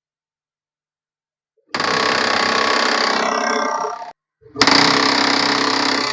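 An HP LaserJet 1020 laser printer's gear train makes a loud, rapid grinding rattle in two stretches, each cut off abruptly. This is the loud noise the printer makes on power-up, from a slipping or jammed gear in its drive mechanism.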